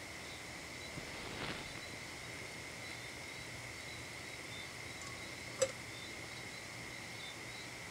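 Faint night-time insect chorus: a steady high chirring with small repeated chirps above it. A single sharp click about five and a half seconds in.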